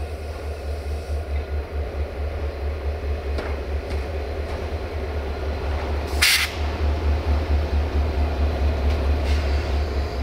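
GM-rebuilt CFR class 65 'Jimmy' diesel-electric locomotive running as it creeps forward light engine during shunting: a steady, pulsing low engine rumble. A brief sharp hiss cuts in about six seconds in.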